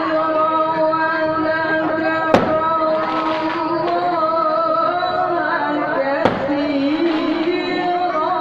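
A male qari chanting Quran recitation in long, slowly bending melismatic held notes, with two sharp bangs cutting through, about two and a half and six seconds in.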